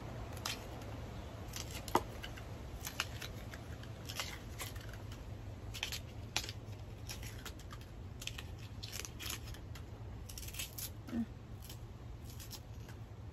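A knife cutting and peeling the sheath off a wild bamboo shoot, in short, irregular, crisp strokes.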